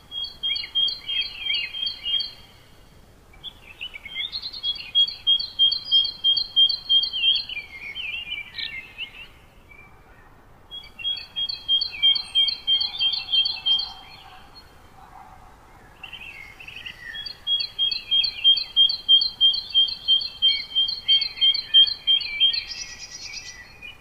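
A songbird singing in four bouts, each a rapid run of the same high, clear note repeated about five times a second, with softer chattering notes beneath. The gaps between bouts last about a second or two, over a faint steady outdoor hiss.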